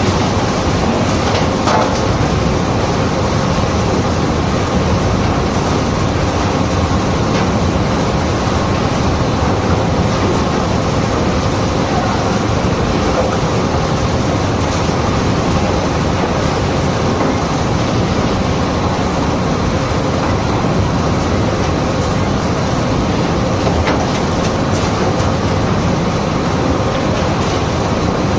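Large kitchen-waste sorting machine running, its rotating paddle arms churning food waste and packaging across a perforated screen: a steady, loud mechanical din with a faint steady hum.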